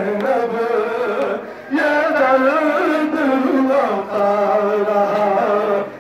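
A nauha, an Urdu mourning lament, chanted in a melodic male voice over loudspeakers, the lines held and gliding in pitch with short breaks between phrases.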